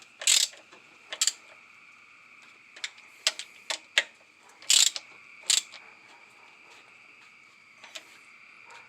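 Hand ratchet clicking in short, irregular bursts as thermostat housing bolts are tightened down, with a pause of about two seconds near the end. A faint steady high tone runs underneath.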